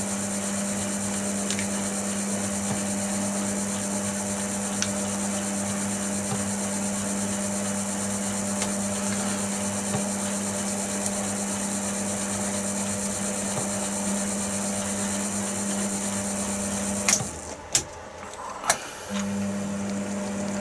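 Chester DB10 metal lathe running with a steady hum and a high whine. About 17 seconds in it is switched off with a few sharp clicks and knocks, and about two seconds later it starts up again.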